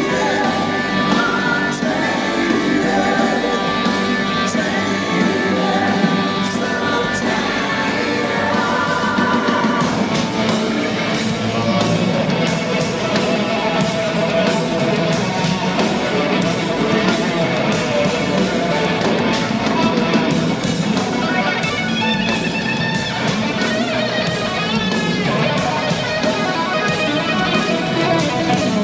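A live hard rock band playing loudly: electric guitars, bass, keyboards and drums, with singing at times, heard from the audience in a concert hall.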